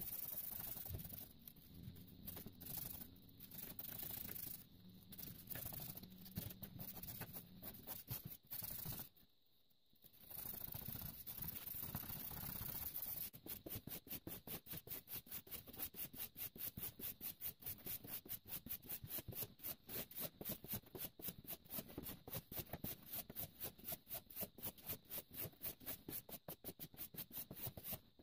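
Abrasive rubbed back and forth by hand on a steel handsaw blade to take off rust. The strokes are uneven at first, with a brief pause, then about halfway through turn into fast, even scrubbing of about three strokes a second.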